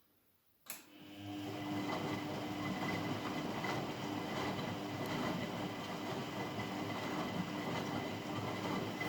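Washing machine starting up: a sharp click, then a steady running sound with a constant hum and a thin whine that builds over about a second and then holds.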